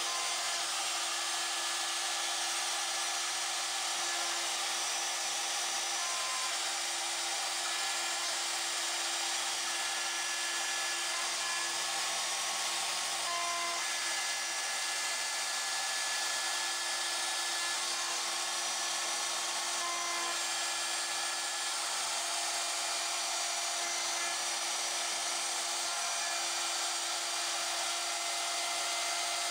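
Pilot Pro CNC router's spindle running steadily as its cutter mills aluminum: a constant high-pitched whine and hiss with a few faint steady tones.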